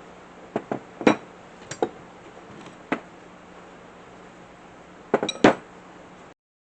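Metal parts clinking and knocking as they are handled and set down: single sharp clinks with pauses between, and a quick cluster of clinks about five seconds in. The sound cuts off to silence near the end.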